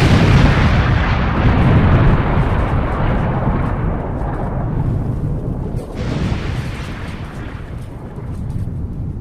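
Explosion: the long, low rumble after the blast, dying away slowly as the high end fades first, with a second surge about six seconds in.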